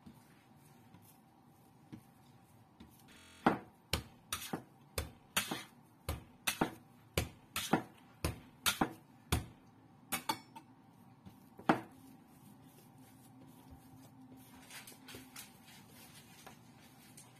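Chocolate bread dough slapped down hard onto a wooden board again and again, about two slaps a second for some eight seconds, as it is kneaded by throwing. After a last hard slap it falls to soft, faint hand kneading.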